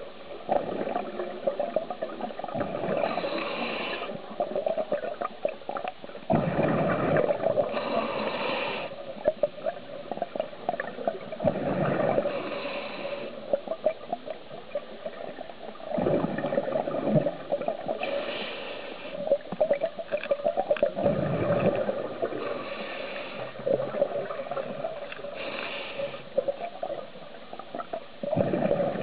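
Scuba diver breathing through a regulator underwater: a hissing inhalation alternates with a rush of exhaled bubbles, one breath about every five seconds.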